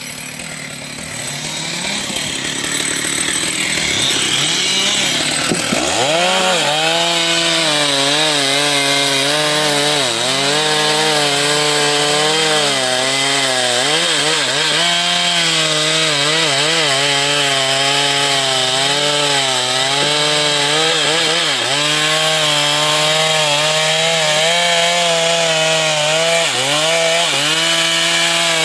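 Stihl two-stroke chainsaw cutting wood. After about six seconds it is running at full throttle, and its pitch keeps dipping and recovering as the chain loads up in the cut.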